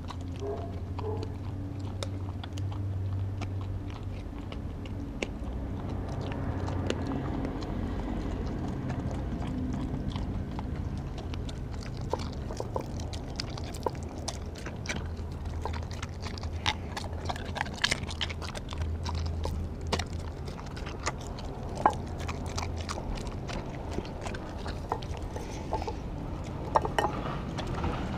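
Australian Kelpie licking and chewing raw food from a glass dish: wet licking and chewing with many short sharp clicks and crunches, which come more often in the second half.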